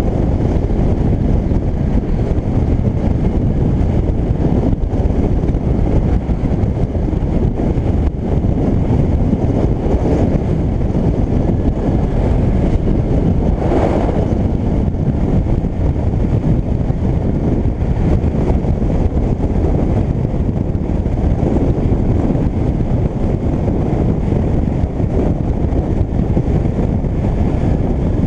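Yamaha DragStar Classic motorcycle under way, its V-twin engine running steadily beneath heavy wind noise on the microphone, with a short swell in the noise about halfway through.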